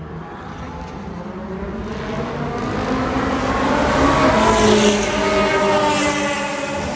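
Track-day car passing by at speed on a race circuit: its engine note grows louder, peaks about five seconds in, then drops in pitch and fades as the car goes away.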